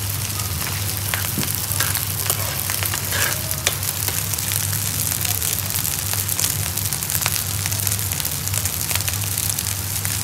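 Meat biryani frying in a hot wok-style pan on a gas range, a steady sizzle full of small crackles, over a steady low hum.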